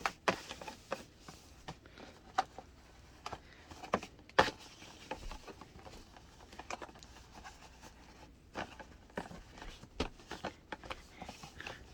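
Irregular light taps, scratches and rustles of a shopping bag and its packaging being pawed and handled, with one sharper knock about four seconds in.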